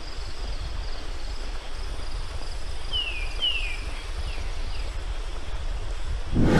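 A stream running with a steady rush under a low wind rumble, while a bird gives a few short falling chirps about three seconds in. A sudden thump comes right at the end.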